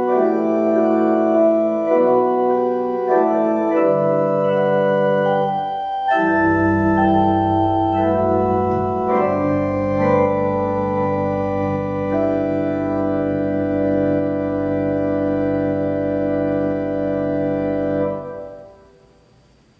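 Church organ playing the closing bars of a prelude: sustained chords that change every second or two, with a deep pedal bass coming in about six seconds in. A long final chord is held, then released near the end, dying away in the sanctuary's reverberation.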